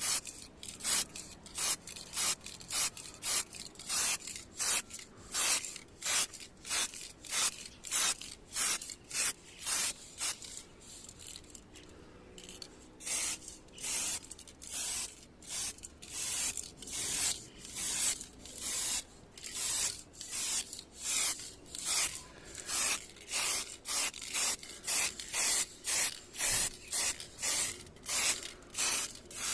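Hand sanding of a car's body panel: back-and-forth rubbing strokes, about two a second, with a short pause about eleven seconds in.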